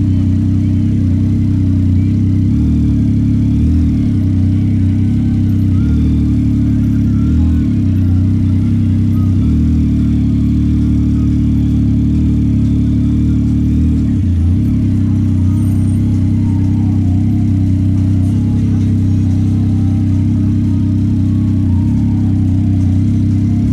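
Yamaha MT-09 SP's three-cylinder engine running at low, nearly steady revs while riding, with a few brief dips in the note.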